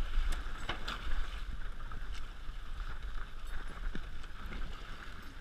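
Water rushing and splashing past a Hobie 16 catamaran's hull while under sail, with wind buffeting the microphone as a low rumble. A few sharp clicks and knocks come through, mostly in the first half.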